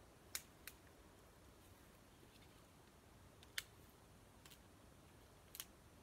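A few sharp dry-wood snaps over near silence: two close together just after the start, one in the middle and one near the end.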